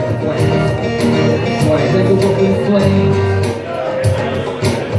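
Small live band playing a rap-rock song: acoustic guitar strumming over percussion hitting a steady beat.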